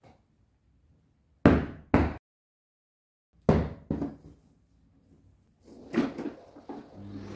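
A series of sharp knocks and thuds from household cleaning, about five in all, with the two loudest close together about a second and a half in.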